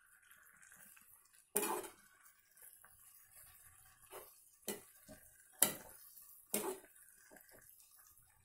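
Metal spoon stirring noodles in an aluminium kadai, knocking and scraping against the pan: a handful of separate clinks, most of them in the second half.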